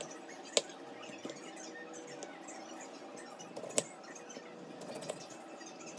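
Two sharp clicks or knocks, about three seconds apart, with a few lighter ticks near the end, over a faint steady hum.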